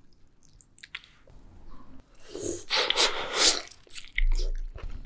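Close-miked wet slurping and squishing of a big bite torn from a slab of soy-marinated raw salmon, with a low thump about four seconds in and chewing clicks starting near the end.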